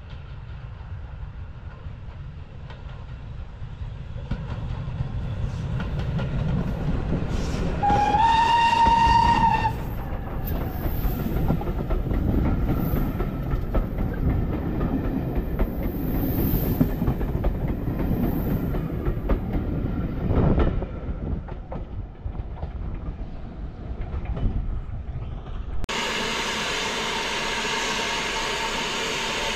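BR Standard Class 9F steam locomotive 92214 and its carriages running into the platform: a low rumble of wheels on rail that builds up over the first few seconds, with one whistle blast of about a second and a half some eight seconds in. Near the end a loud, steady hiss of escaping steam starts abruptly as the engine comes alongside.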